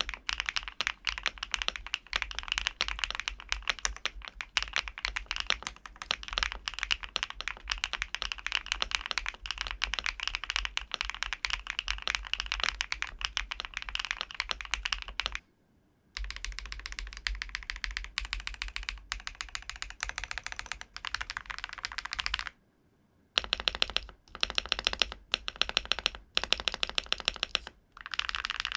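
Typing on a LUMINKEY75 V2, an aluminium-cased, gasket-mounted 75% mechanical keyboard with foam dampening, LUMINKEY Astral switches and PBT keycaps: a fast, continuous run of keystroke clicks. It breaks off briefly about halfway and again a few seconds later, then finishes in shorter bursts.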